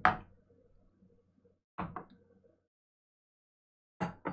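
Whiskey tasting glasses set down and moved on a wooden tabletop. A sharp knock comes at the start, then a pair of lighter knocks about two seconds in and another pair near the end.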